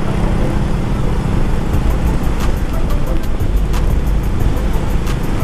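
Motorcycle riding along a road at speed: wind rushing over the camera microphone with a steady low rumble of engine and road noise.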